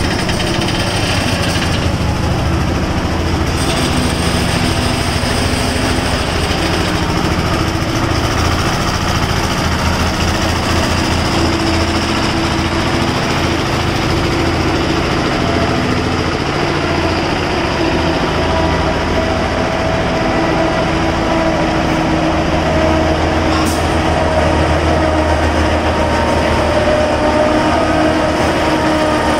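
Heavy truck's diesel engine running steadily as it hauls a precast concrete girder on a multi-axle trailer, a continuous low drone with steady engine tones. A couple of brief sharp clicks come late on.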